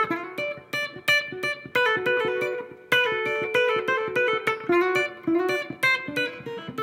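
Telecaster-style electric guitar playing a country chicken-pickin' lick: hybrid picking with a pick and a finger, giving a fast run of snappy, plucky notes, with a few notes held a little longer in the middle.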